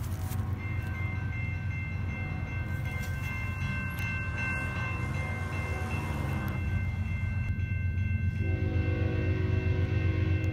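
Freight train's locomotive horn sounding a long, held chord over a steady low rumble. A lower, fuller set of horn notes comes in about eight and a half seconds in.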